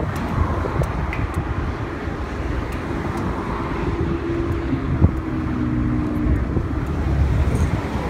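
Wind buffeting the microphone over a steady low rumble. A faint hum comes in for a few seconds in the middle, and there is a single light knock about five seconds in.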